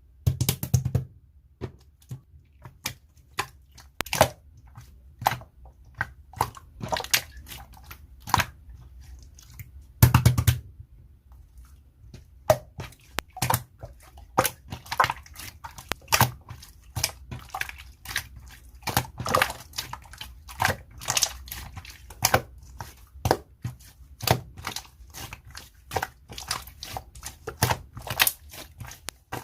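Slime being squished, poked and stretched by hand, making irregular sticky clicks and pops, with louder clusters of pops about half a second and about ten seconds in.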